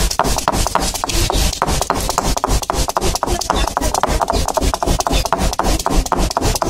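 Cylindrical granite stone roller rolled and pressed back and forth on a wet granite grinding slab (ammi), crushing unpeeled garlic cloves: a rapid, uneven series of stone-on-stone knocks with grinding and rubbing.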